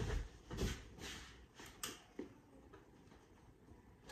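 A knock as a tall cardboard shipping box is set down, then a few fainter knocks and shuffles over the next two seconds that die away.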